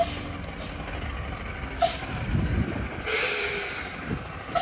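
Diesel bus running, its air brakes letting out a loud hiss of air about three seconds in, with short sharp clicks about two seconds apart.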